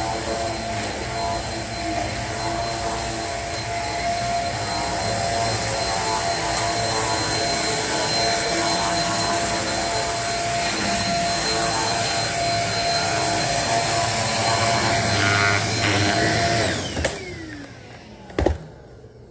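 Corded Shark upright vacuum cleaner running with a steady motor whine, then switched off about 17 seconds in, its pitch falling as the motor winds down. A single knock follows about a second later.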